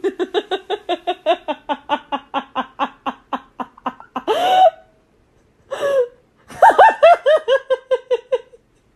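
A person laughing hard in rapid 'ha-ha' pulses for about four seconds, then a wheezing breath in, then another run of laughter.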